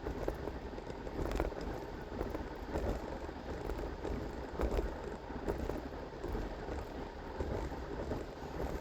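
Steady low rumble and road noise, like a vehicle's cabin on the move.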